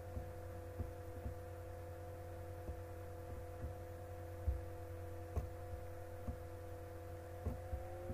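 Steady low electrical hum with a few faint steady tones above it, and scattered faint clicks through it.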